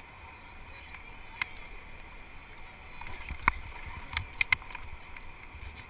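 River water rushing steadily around a whitewater raft, heard muffled through a GoPro Hero2's waterproof housing. A sharp knock comes about a second and a half in, a louder one past the middle, and two more in quick succession soon after.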